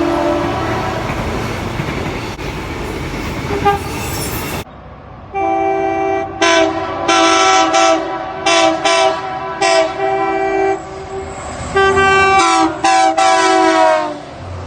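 Passing train with rail noise as a horn chord dies away. Then a multi-note train chord horn sounds a run of blasts, some long and some short, with a brief pause partway through.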